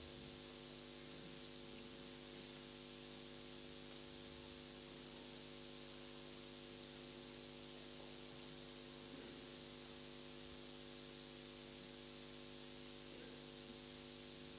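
Low, steady electrical mains hum with hiss in the sound feed, with no singing or speech over it.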